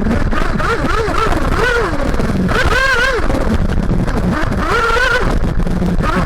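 1/8-scale nitro buggy's tuned Max Power Storm glow engine, heard from an onboard camera, revving up and falling back in short throttle bursts about five or six times, with a steady lower note between bursts.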